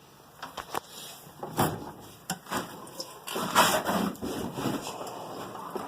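Steel tool box drawers being pushed shut and pulled open: a few sharp knocks, then a longer sliding rattle of a drawer and the tools inside it about three and a half seconds in.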